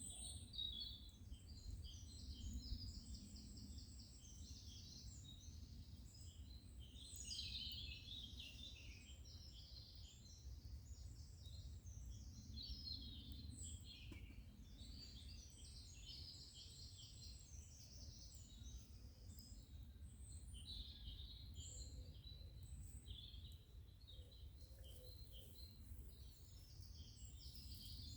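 Faint woodland birdsong: several birds chirping and trilling on and off, over a low steady rumble.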